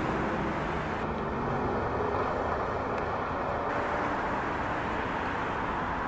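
Steady road-traffic noise, an even rumble and hiss with no distinct calls or events standing out.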